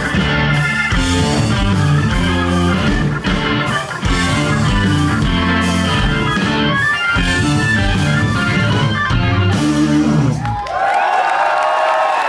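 Live rock band playing (electric guitars, bass, drums and keyboard), stopping together on a final hit about ten and a half seconds in, followed by the crowd starting to cheer.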